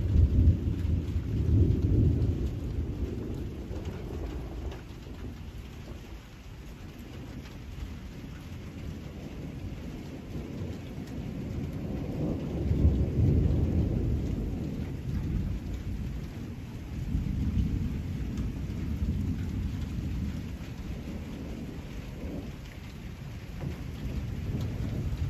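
Thunderstorm: steady rain with long low rolls of thunder, one right at the start and a louder one about halfway through, trailing off into lighter rumbling.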